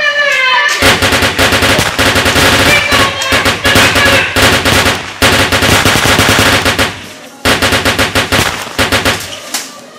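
Rapid automatic gunfire, like a machine gun: one long burst of shots, then a shorter burst after a brief gap about seven and a half seconds in. A short shout comes just before the firing starts.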